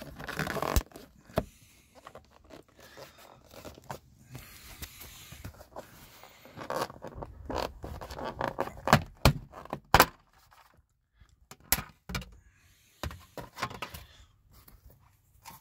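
Plastic door-sill and pillar trim of a BMW E60 being worked loose by hand: plastic scraping and rubbing, with several sharp snaps of trim clips letting go, mostly in the second half.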